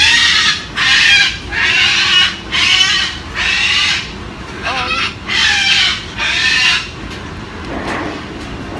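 Umbrella cockatoo giving a run of about seven loud, raspy calls, each under a second long and evenly spaced, stopping about seven seconds in.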